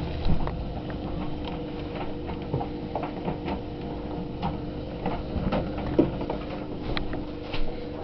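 White Knight/Bosch vented tumble dryer running at the start of its cycle: a steady motor hum with the turning drum and its load giving irregular light clicks and knocks.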